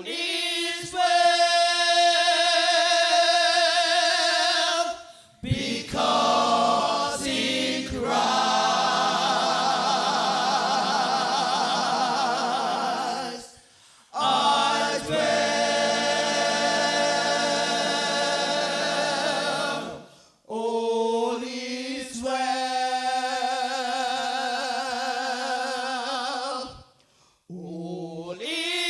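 Gospel choir singing a 1960s–70s UK Caribbean church gospel song in harmony. Long held chords come in phrases of several seconds, with brief breaks between them.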